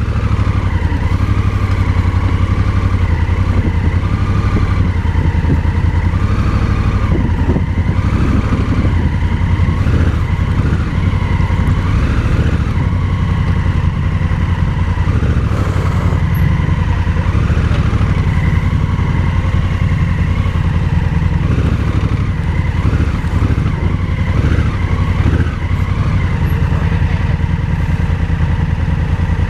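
Vehicle engine running steadily while driving along a dirt road, a low continuous rumble with no let-up.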